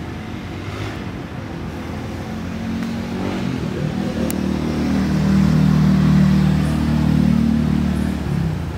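A motor vehicle's engine running steadily, growing louder from about two seconds in and then dropping away near the end.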